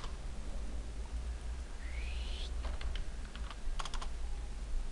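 Computer keyboard and mouse clicks: a few scattered clicks, with a quick cluster of keystrokes near four seconds in, over a steady low hum. A short rising squeak about two seconds in.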